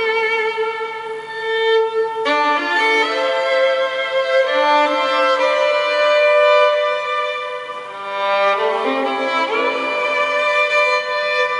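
Violin playing a melody of long held notes, sliding up into some of them, softening briefly about eight seconds in.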